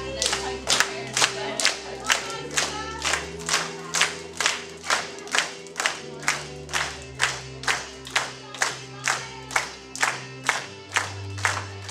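Group of young children clapping in time to a song, about two claps a second, steady throughout. Underneath is a song with sustained instrumental notes and a bass line, with singing voices.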